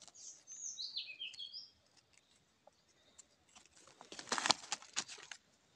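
A bird sings a short phrase of quick high notes that slide up and down in the first two seconds. About four seconds in comes a burst of rustling and scraping as gloved hands and a knife work through dry leaf litter to dig out a mushroom.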